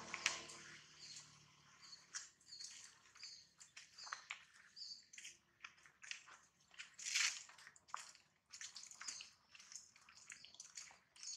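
Faint outdoor ambience: scattered short clicks and rustles, with a run of brief high chirps about every half second in the first half.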